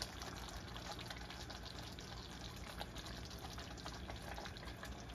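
Tomato sauce simmering around meatballs in a frying pan: a soft, steady bubbling hiss with a few faint pops.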